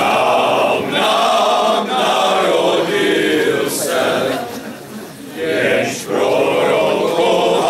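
Men's choir singing a Christmas carol together in long sustained phrases, with a short break for breath about five seconds in.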